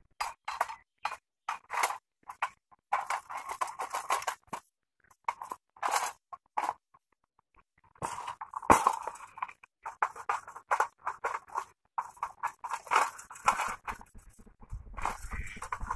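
Irregular metallic scraping and clicking as an iron rod is slid through the hubs of bicycle wheels and the spoked wheels are handled, with a short break about seven seconds in.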